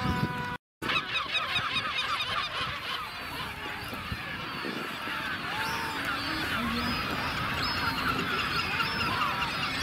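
Dense chorus of many seabirds calling at once in a breeding colony, many overlapping high calls with occasional gliding notes standing out. It breaks off briefly at an edit just under a second in.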